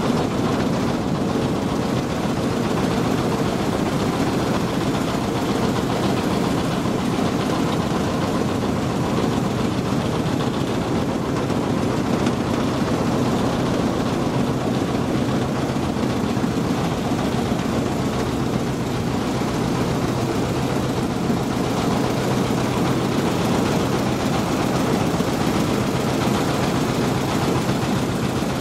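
Boat engine running steadily at an even pitch, a constant drone.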